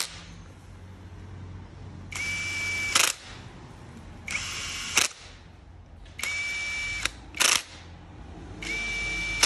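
Cordless drill with a socket extension spinning bolts on an engine's cylinder head in four short runs of about a second each, plus one brief blip. It runs with a steady motor whine, and each run ends in a sharp click.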